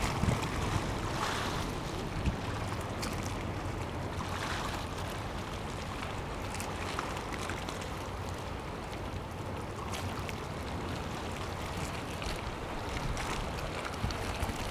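Steady outdoor wind noise rumbling on the microphone over a soft wash of water, with a few faint ticks.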